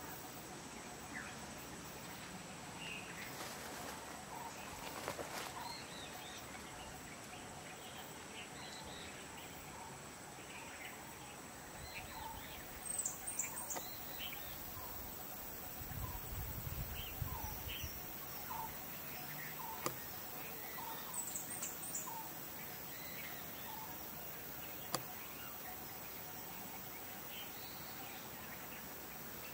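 Outdoor ambience of scattered short bird chirps and calls over a steady background hiss. Two quick flurries of high-pitched chirps, about a third and two thirds of the way through, are the loudest sounds. A brief low rumble comes about halfway.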